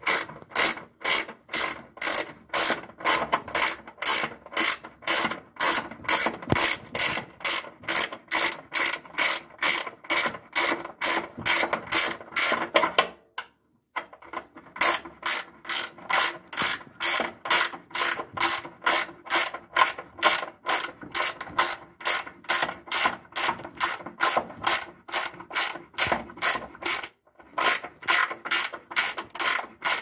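Ratchet wrench clicking steadily as it turns a nut on a long threaded rod across an automatic washing machine's tub, about three clicks a second, breaking off briefly about halfway and again near the end.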